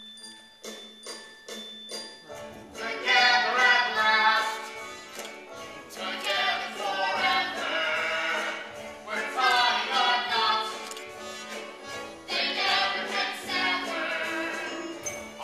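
Live musical-theatre song: singing with orchestral accompaniment, picked up from the audience. A few bell-like chimes ring at the start, and the singing comes in about two and a half seconds in and carries on in long phrases.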